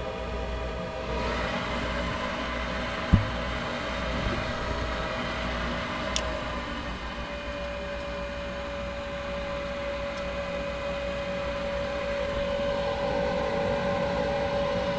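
Gas furnace's draft inducer motor running steadily during the start-up sequence, before the igniter lights, with a sharp click about three seconds in and a lighter click about six seconds in.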